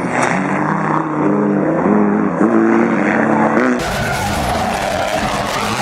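Rally car engine at full throttle, its pitch climbing and dropping back in steps as it shifts through the gears. About four seconds in, the sound cuts abruptly to another rally car running at a steadier engine note with much more noise.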